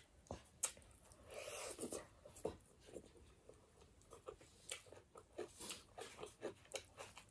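Eating by hand: a person chewing a mouthful of rice and fish curry, with a string of short, faint mouth clicks and smacks, and fingers picking at the food on the plates.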